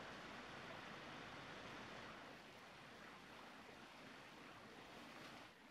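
Near silence: a faint, steady hiss of outdoor background noise, dropping slightly about two seconds in and again near the end.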